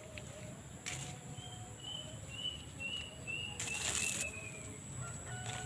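A bird calling a run of about eight short, high notes, each a little lower than the last, over a few seconds. The notes are broken by several short bursts of rustling, the loudest near the middle.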